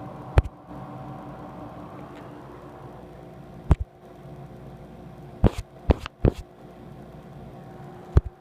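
Steady hum of a running fan with a few constant tones, broken by six sharp knocks: a single one early, another near the middle, three in quick succession past the middle, and one near the end.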